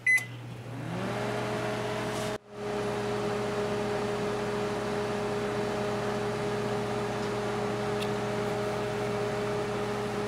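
Panasonic Genius Sensor 1250W inverter microwave: a single beep as the Start button is pressed, then the oven starting up, its hum rising in pitch over about half a second and settling into a steady running hum. The sound cuts out briefly a little over two seconds in.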